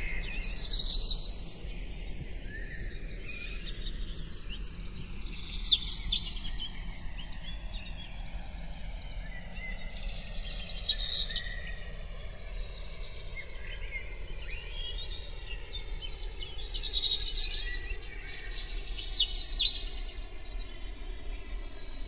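A bird singing: short high chirping phrases every few seconds, about six in all, over a faint steady outdoor background.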